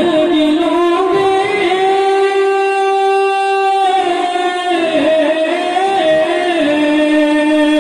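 A man singing a naat, an Urdu devotional praise poem, into a microphone in long, drawn-out melodic lines. Between about two and four seconds in he holds one note steady before the melody bends again.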